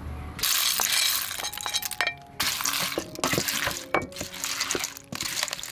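Cooked blood cockle shells clinking and rattling against each other and a stainless steel bowl as they are tossed with a wooden spoon, starting about half a second in and going in several bouts with brief pauses.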